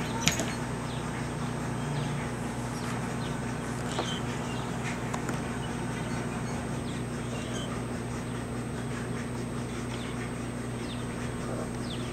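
A steady low hum runs throughout, with scattered short, faint bird chirps over it and a single small click right at the start.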